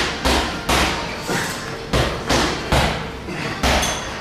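Repeated heavy thuds from someone exercising, coming in a steady rhythm of about two to three a second.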